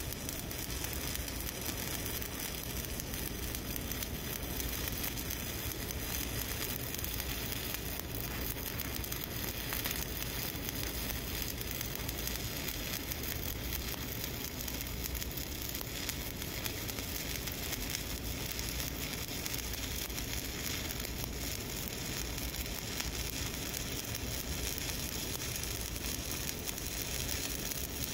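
Shielded metal arc (stick) welding with a 7018 electrode: the arc crackles and sizzles steadily without a break while a cover pass is run along a horizontal groove weld.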